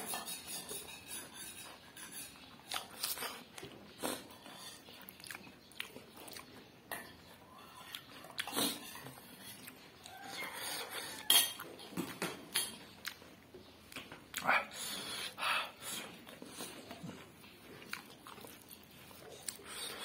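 Close-up eating sounds: chewing and mouth smacks on smoked pork intestine, with occasional short clinks of a spoon or fingers against a plate, coming in scattered, irregular bursts.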